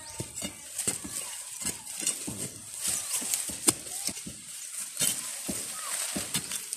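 Metal digging rod jabbing and scraping into gravelly soil and dry brush: irregular scrapes, crunches and clicks, with a sharp knock a little before four seconds in.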